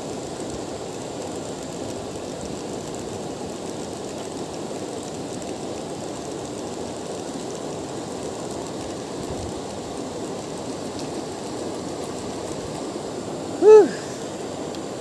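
Steady rush of river water flowing among rocks. Near the end comes one brief, loud pitched call that rises and falls.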